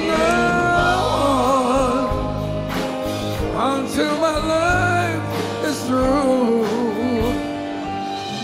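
Live band playing a love song: a man sings the lead melody over electric bass and drums with cymbals.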